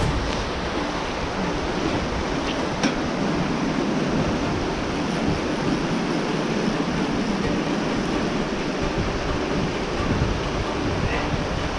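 Shallow creek water rushing steadily over flat rock ledges and small rapids, a constant hiss of white water, with a single brief click about three seconds in.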